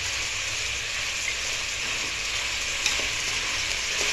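Chopped mixed vegetables sizzling steadily as they sauté in an open aluminium pressure cooker, stirred with a steel spoon that clicks lightly against the pot once or twice near the end.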